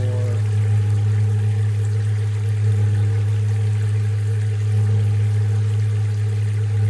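Hot water running steadily from a diesel combination heater's outlet during a shower test, over a steady low hum.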